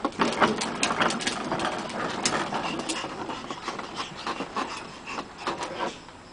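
Plastic ride-on toy car rolling over concrete, its hard plastic wheels and body rattling with a quick run of clicks and knocks that stops about six seconds in.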